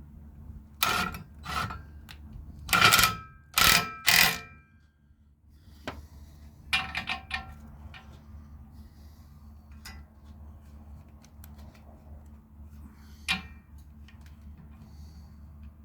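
Metal clanks and clinks of brass valve parts being knocked and handled, with five sharp ringing strikes in the first few seconds, a softer run of clinks midway and one more near the end. A steady low hum lies underneath.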